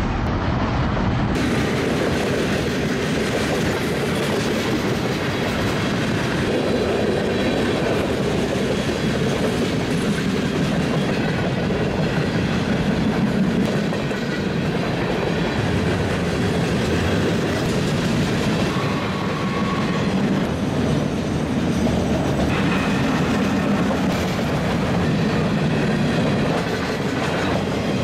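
Freight train of boxcars and autorack cars rolling past close by: the steady, continuous rumble and rattle of steel wheels running over the rails.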